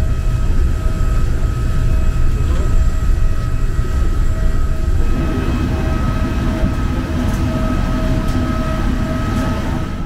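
Steady low rumble with a constant high whine over it, as heard from inside a moving vehicle such as an airport train or an aircraft, with a few faint clicks near the end.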